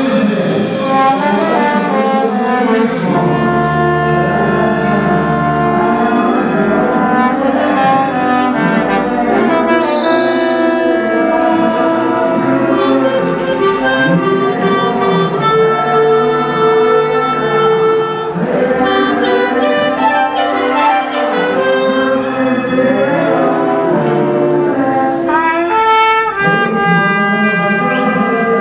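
Brass band of trumpets, saxophones and sousaphones with percussion, playing a piece together with steady, continuous loud music.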